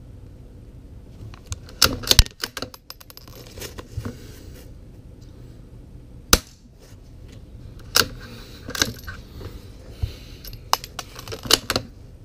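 Suppressed Savage MKII bolt-action .22 LR rifle firing subsonic CCI Quiet-22 rounds: sharp cracks about two seconds in and about six seconds in, with metallic clicks and clacks of the bolt being worked between shots.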